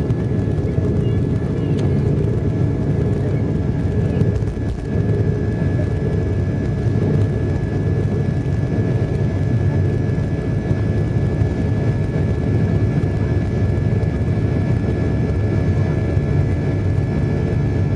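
Jet airliner engines at takeoff thrust, heard from inside the cabin: a steady low rumble with thin steady whines above it, through the end of the takeoff roll and into the initial climb.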